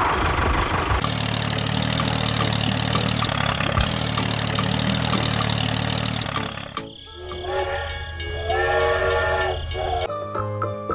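A train running, a steady rumble with evenly spaced clicks, then a whistle blowing in several tones for about two seconds. Jingly music starts near the end.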